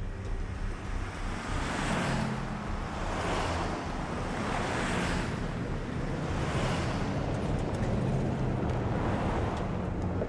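Pickup trucks driving on a dirt road: a steady low engine hum under tyre and gravel hiss that swells and fades several times as they pass.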